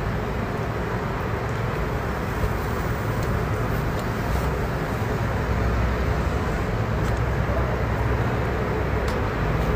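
A steady low rumble of background noise that holds level throughout, with a few faint, light clicks over it.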